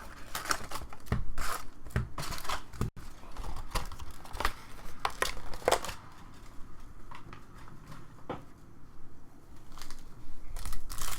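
Trading card packs being torn open, with the wrappers crinkling and the cards handled, in short irregular rustles that thin out after about halfway.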